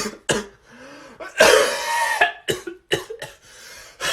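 A person coughing: several short coughs, with one long, loud cough about a second and a half in.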